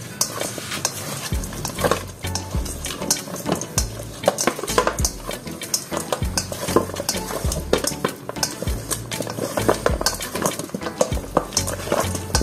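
Wooden chopsticks stirring and tossing marinated duck pieces in a stainless steel bowl, with frequent irregular clicks and scrapes of the chopsticks against the metal.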